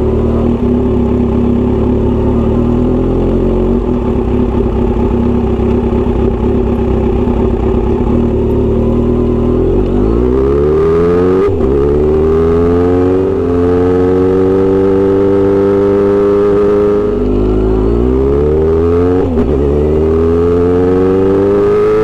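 Kawasaki Z900RS inline-four engine through a Misty Kintaro short aftermarket exhaust, idling steadily for about ten seconds. It then pulls away and accelerates, its pitch rising with two upshifts, and holds a steady cruise between them.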